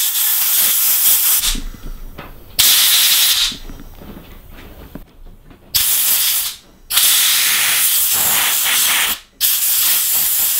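Compressed air from a blow gun hissing in five short blasts, the fourth the longest (about two seconds), blowing dirt out of the forward/reverse switch and trigger mechanism of a Makita impact driver that will not reverse.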